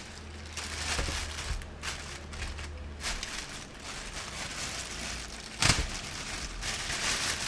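Packaging and items being handled, with irregular rustling and crinkling and a sharp knock about five and a half seconds in.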